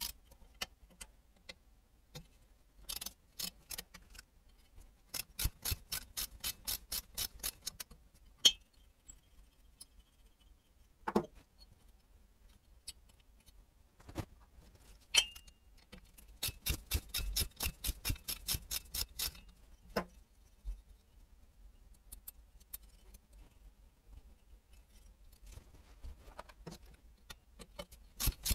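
Ratchet wrench clicking in several runs of quick, even clicks as the nuts on a small motorcycle engine's cylinder head are undone, with a few single sharp metal knocks of tools or parts being set down.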